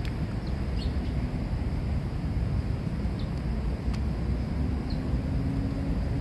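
Outdoor park ambience: a steady low rumble with a few short, high bird chirps scattered through it.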